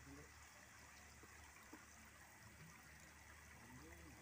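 Near silence: a faint steady outdoor hiss, with faint distant voices toward the end.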